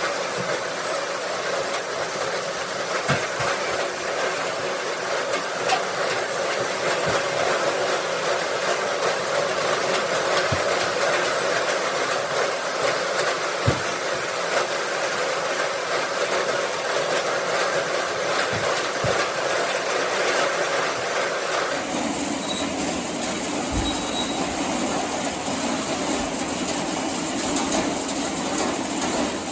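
Farm tractor and its machinery running steadily, with scattered knocks and clatter. The sound changes abruptly about three-quarters of the way through.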